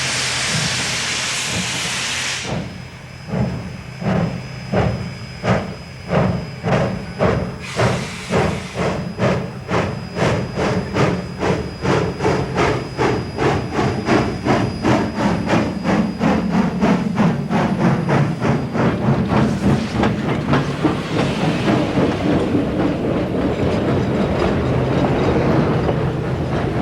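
Baldwin 2-8-2 steam locomotive starting a passenger train. A loud hiss of steam comes first, then the exhaust chuffs begin, about one a second, and quicken steadily to several a second as the train picks up speed. Short hisses of steam come twice along the way.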